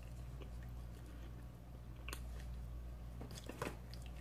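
A person chewing a mouthful of stromboli, with wet mouth smacks and a few sharp clicks about two seconds in and again near the end, over a low steady hum.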